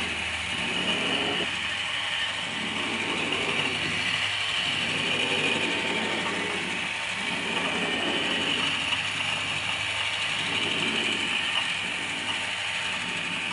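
Drawing machine's mechanism running: a steady mechanical whir that swells and dips in a slow cycle about every two and a half seconds.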